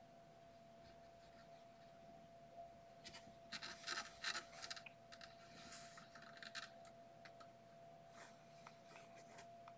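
Kittens' claws and fur scratching and rustling close to the microphone, in a cluster of scratchy clicks loudest about four seconds in, with a few lone clicks near the end. A faint steady tone sits underneath.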